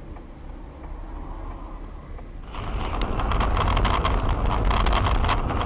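Dashcam sound from inside a moving car: a low, steady cabin rumble, then, about two and a half seconds in, a sudden switch to louder road and engine noise with fast crackling on top.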